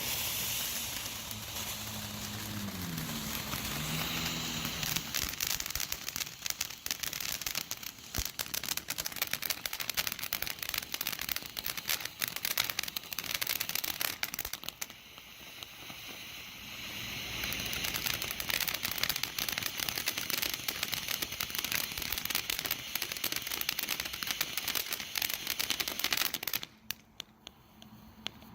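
Pyro Demon 'Everlasting Mayhem' crackling fan fountain firework burning: a steady hiss of sparks thick with crackling pops. It eases off about halfway through, builds up again, and cuts out near the end.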